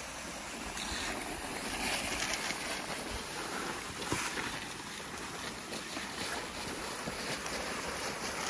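Cross-country skis swishing over groomed snow in a steady noisy glide, with some wind on the microphone.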